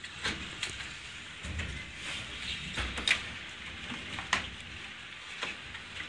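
Storm noise: a steady rain-like hiss with a low rumble, broken by about half a dozen irregular sharp knocks.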